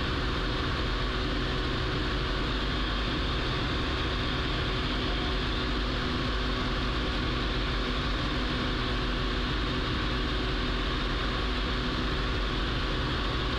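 Piston-engined bushplane's engine and propeller droning steadily in cruise, heard from the cockpit.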